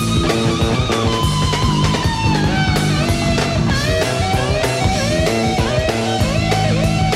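A live rock-fusion band playing, heard from a cassette tape of an FM broadcast: drums and bass under a lead line that bends and glides in pitch.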